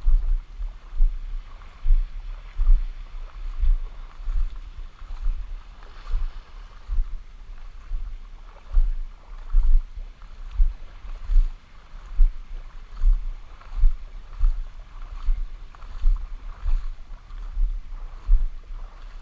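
Shallow sea water washing at the shore, with low thumps on the microphone repeating about every three quarters of a second from the angler's movement as he fishes the lure.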